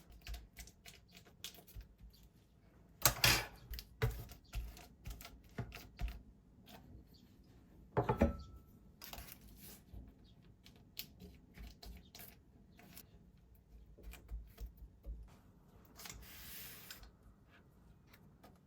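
Kitchen handling sounds during baking: a series of light clicks and taps of utensils and dishes, with louder knocks about three and eight seconds in and a short hiss near the end.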